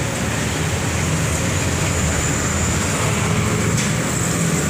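Steady noise of road traffic, an even rumble and hiss with no single vehicle standing out.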